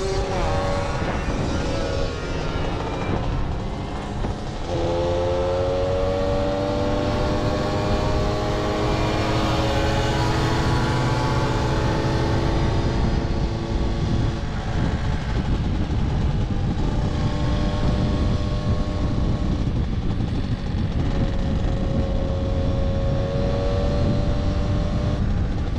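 Several small 50cc moped engines running at speed in a pack, their notes wavering and gliding in pitch, clearest in the first half. Heavy wind rumble on the microphone lies under them.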